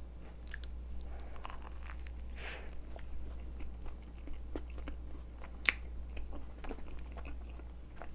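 Close-miked chewing of a lemon tart with a cookie-like crust: soft wet mouth sounds and small crunches, with one sharper click about five and a half seconds in.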